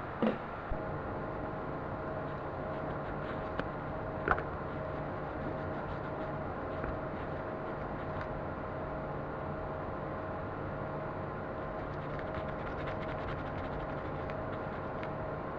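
Steady mechanical hum with a faint evenly pulsing tone, and a few sharp clicks and knocks in the first few seconds.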